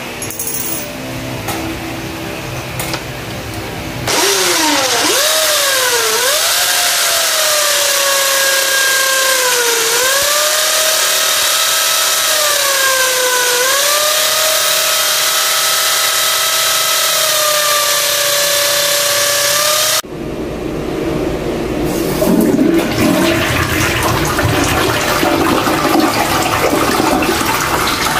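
Corded electric drill running as it bores into floor tile, its motor whine dipping in pitch several times as the bit bites. About twenty seconds in it gives way to a toilet flushing with rushing water.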